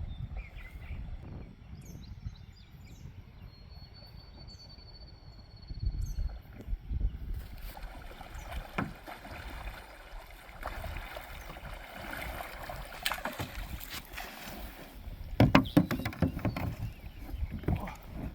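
Kayak being paddled: paddle strokes splashing and knocking against the hull, with a cluster of louder knocks near the end over a steady low rumble.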